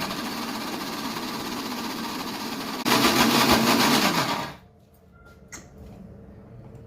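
A 500-watt LIFELONG mixer grinder's motor running, steady at first, then louder from about three seconds in, and switched off abruptly about four and a half seconds in.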